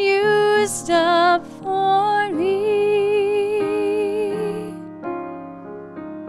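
Woman singing a slow song with piano accompaniment, ending a phrase on a long held note with vibrato about halfway through. After that the piano plays on alone.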